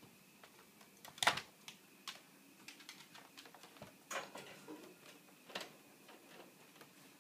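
Irregular clicks and rattles of a wire pet playpen as a small dog moves about inside it and paws at the bars, with the loudest knock about a second in.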